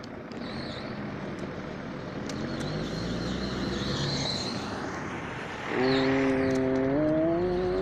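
Road traffic passing, then a vehicle's engine pulling away with a steady pitched note that rises near the end as it speeds up.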